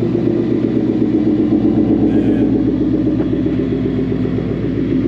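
Ford Mustang GT's 5.0 L V8 idling steadily through a Corsa Extreme exhaust with a newly fitted X-pipe, a deep, even burble from the rear tailpipes.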